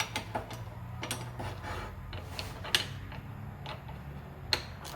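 Scattered sharp metal clicks and knocks, the loudest two about 2.7 and 4.5 seconds in, as a steel knife blade is set against the magnetic bevel jig and the jig is handled. A low steady hum runs underneath.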